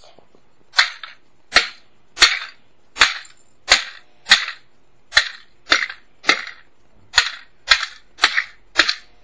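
Thirteen sharp blows in a steady rhythm, about one and a half a second, smashing the plastic pieces of a broken VHS cassette on concrete.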